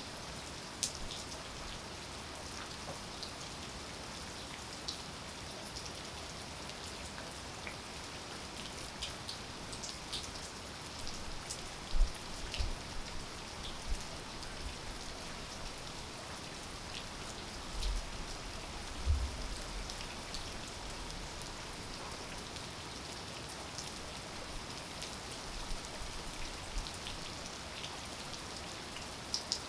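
Steady rain falling, an even hiss with many scattered individual drops ticking close by. A few dull low thumps stand out about twelve and nineteen seconds in.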